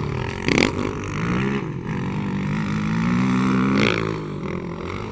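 A 450R four-stroke motocross bike's engine revving up and down, its pitch falling, then climbing slowly for a few seconds before dropping again. Two brief rushes of noise come through, about half a second in and about four seconds in.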